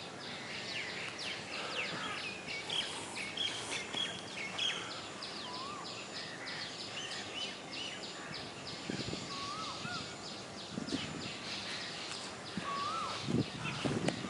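Wild birds chirping and calling, with a short rising-then-falling whistle repeated every few seconds and a fast, even series of high ticks, about four a second, through most of it. A few lower, rougher sounds come in near the end.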